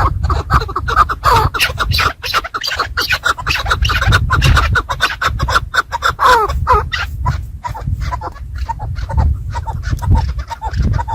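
Chukar partridges calling over and over in quick, chattering, clucking calls, with a low rumble underneath.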